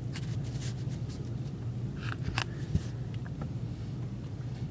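Stack of trading cards handled by gloved hands: soft rustling and light clicks of the cards being shuffled and set down, mostly in the first half, over a steady low hum.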